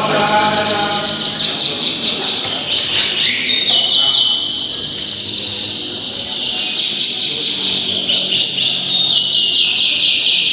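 Domestic canaries singing long, rapid trills and rolls without a break, several songs overlapping.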